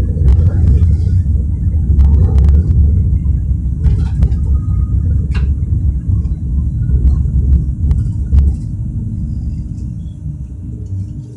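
Bombardier NGT6/3 tram running on the rails, with a heavy low rumble, a steady motor tone and scattered sharp clicks. After about eight seconds the rumble drops away and the sound fades steadily as the tram slows down.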